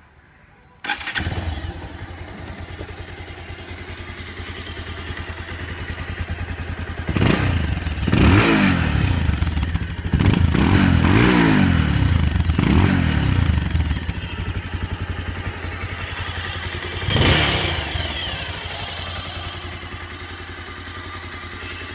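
Stock exhaust of a 2013 Bajaj Pulsar 220's single-cylinder engine: started about a second in, then idling, with several revs around the middle and one short rev near the end before settling back to idle.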